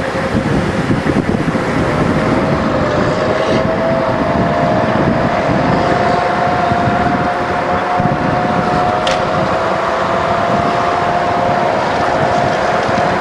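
A convoy of military vehicles (Humvees, then eight-wheeled armoured vehicles) driving past, with steady engine and tyre noise. A whine rises slightly over the first few seconds and then holds steady. Wind buffets the microphone.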